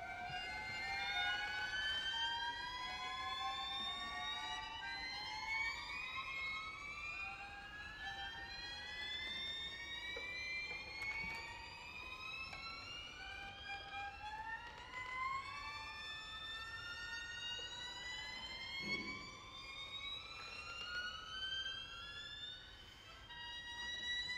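String quartet playing many overlapping slow upward glissandi in a high register, each slide climbing over a few seconds while new ones start beneath it.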